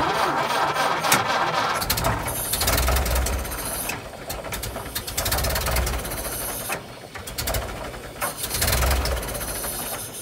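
1929 Ford Model A four-cylinder engine being started: it catches and runs roughly, surging three times, then fades near the end without settling into an idle. It won't stay running, a sign of fuel starvation that the owner suspects comes from the carburetor.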